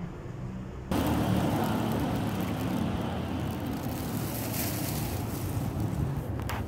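Steady outdoor street noise on a handheld phone's microphone, a low rumble of traffic under a hiss, which jumps louder about a second in.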